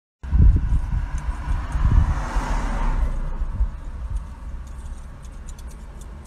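Street traffic noise: a low, uneven rumble, with a hiss that swells and fades about two to three seconds in, like a vehicle passing.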